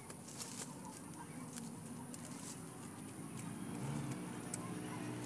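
Scattered faint knocks of a broad chopping knife striking the soil and cassava roots while digging the roots out by hand, with a low hum coming in during the second half.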